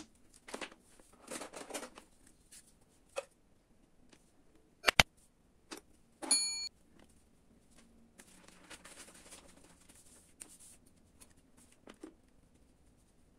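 Hands cutting and stripping a laptop charger's cable: small scrapes and rustles of the wire, two sharp snaps close together about five seconds in, then a short squeaky scrape of a blade on the insulation.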